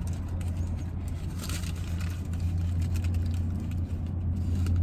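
Chewing a mouthful of a sausage egg McMuffin, with small wet clicks and rustles, over the steady low hum of a parked car running.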